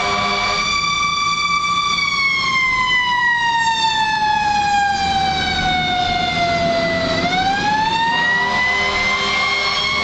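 Fire engine siren sounding while responding to a call: a single wailing tone holds, slowly falls over about five seconds, then quickly winds back up near the end. Under it the truck's engine rumbles, and a lower steady tone drops out about half a second in and returns near the end.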